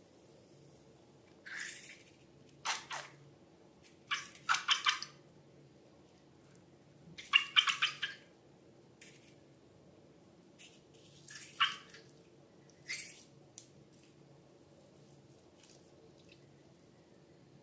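Slime being handled: a series of short, sticky squelches and drips, in separate bursts with pauses between them.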